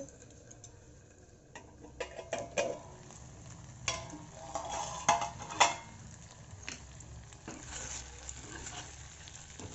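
Steel plate lid lifted off a kadai, then metal clinks and scrapes of a spoon stirring cooked okra sabzi in the pan, with a light sizzle of the okra frying. A few sharp clinks, the loudest about five and a half seconds in.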